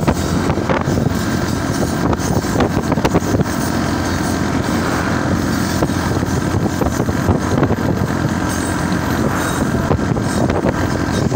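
Hazara Express passenger train running on the rails: a steady rumble with scattered short clatters and clicks.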